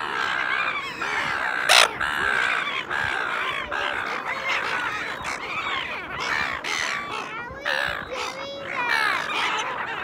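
A flock of silver gulls calling all at once, many harsh overlapping squawks with no break. About two seconds in there is one sharp loud sound close to the microphone.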